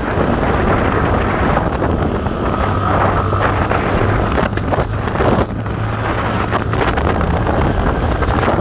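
Loud wind buffeting the microphone, with a steady low hum underneath through the middle few seconds.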